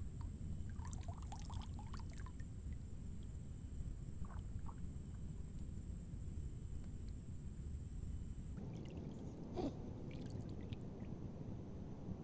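Quiet open-air lakeside ambience: a steady low rumble with a faint high steady whine that stops about eight and a half seconds in. Faint short chirps come about a second in, and a brief soft rustle or splash near the end.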